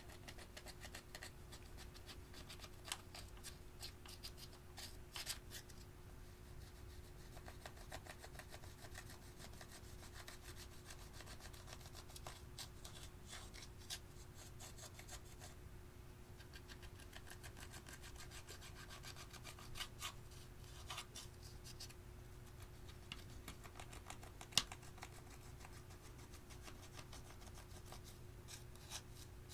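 Tip of small metal scissors scraping and breaking up pressed eyeshadow powder in a plastic palette: a faint, dry scratching and crumbling with scattered light clicks of metal on the pans, and one sharper click about three-quarters through.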